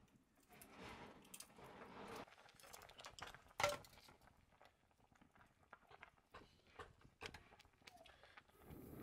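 Faint scattered clicks and taps in a quiet small room, with one sharp, louder clink that rings briefly about three and a half seconds in.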